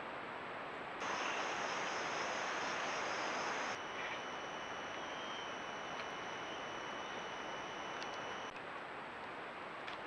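Steady hiss of trail-camera audio: outdoor ambience and microphone noise with a faint high electronic whine. It changes in level abruptly where the clips cut, about a second in, near four seconds and again near eight and a half seconds.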